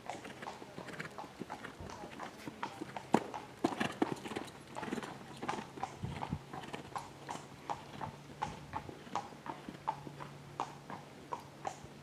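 Hoofbeats of a young Holsteiner gelding cantering on sand arena footing, a steady run of dull strikes with one much louder strike about three seconds in.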